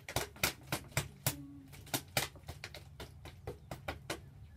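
A plastic water bottle handled in the hand, giving irregular sharp clicks and crackles, several a second.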